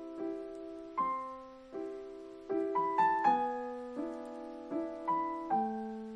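Slow, gentle piano music: notes and chords struck at an unhurried, even pace, each left to fade, with a quicker run of notes near the middle.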